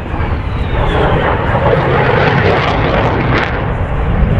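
Jet aircraft flying past: a loud, steady roar, with a faint whine falling in pitch in the first second.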